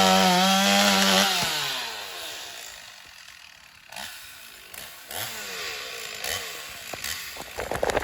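A motor running loud and steady, then its pitch slides down as it fades over the next several seconds.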